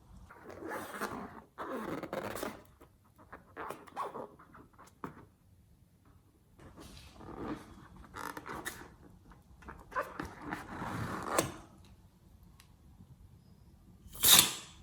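Slime being squeezed and stretched by hand, squelching in irregular bursts, with one short, louder burst near the end.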